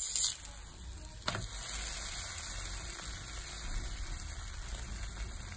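Paratha frying in oil on a flat nonstick tawa: a steady sizzling hiss. A sharp tap just over a second in, as the spatula works the bread, after which the sizzle holds at an even level.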